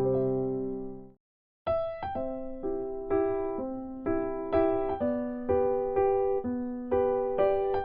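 Background piano music: light electric-piano notes struck about twice a second, with a brief break about a second in before the tune starts again.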